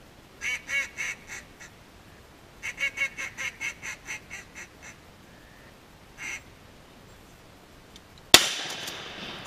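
Mallard-hen quacking: a short run of quacks, then a longer run that tapers off, and one more quack a couple of seconds later. About a second before the end a single shotgun shot goes off, its echo trailing away.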